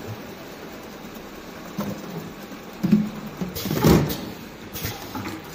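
Automatic jerry-can filling line running: a steady machine hum with several knocks and clatters as the plastic cans are moved along the conveyor, the loudest cluster about three to four seconds in.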